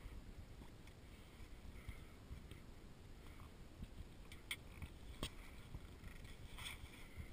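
Faint, uneven low rumble of light wind on the microphone, with a few soft ticks about four and a half, five and almost seven seconds in.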